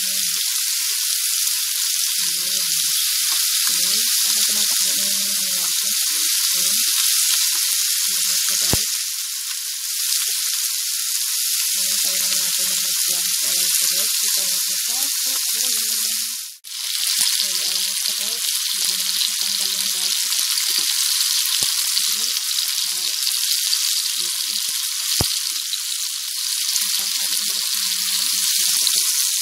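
Chicken thighs frying in hot oil in a nonstick pan, a steady loud sizzle as the pieces are turned with tongs. There are a couple of sharp clicks, and the sizzle cuts out for an instant a little past halfway.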